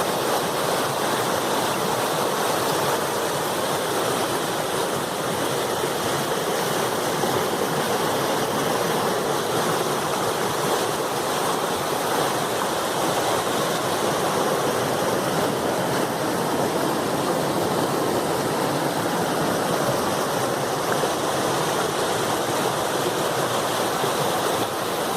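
Strong river current rushing, a loud steady roar of moving water that does not change.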